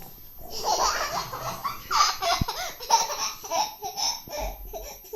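A young child laughing in a long run of giggling bursts, starting about half a second in.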